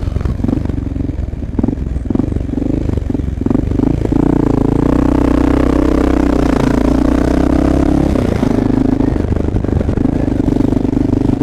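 Honda XR650L dual-sport motorcycle's single-cylinder engine running under way, with a few knocks and rattles in the first few seconds; the engine gets louder about four seconds in and holds steady.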